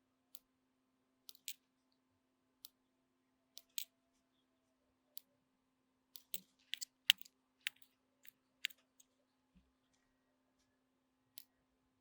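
Small sharp clicks and ticks at irregular intervals, some in quick pairs and a cluster with the loudest about seven seconds in, from hand work on a Tascam 122mk3 cassette deck's circuit boards.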